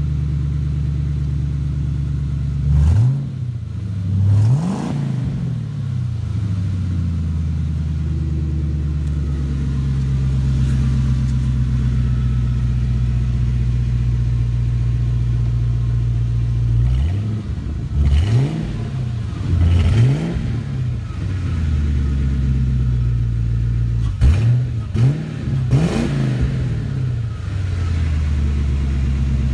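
Ford Mustang GT's 4.6-litre V8 idling through its worn-out Magnaflow mufflers. The throttle is blipped twice a few seconds in, then revved in a run of quick blips from about 17 to 26 seconds in, each rising and falling back to idle.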